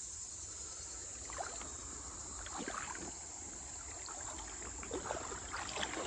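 Feet wading through a shallow, rocky creek: water sloshing and splashing irregularly, more often in the second half.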